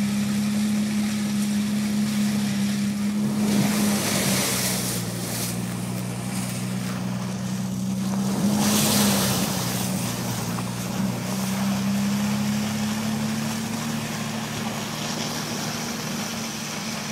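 Nissan Patrol 4WD's engine running at a steady pitch while driving off-road, with two rushing splashes of water and mud, about four seconds in and again about nine seconds in.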